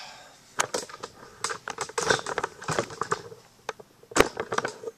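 Handling noise as the camera is picked up and moved: a run of irregular clicks, taps and rattles, with one louder knock about four seconds in.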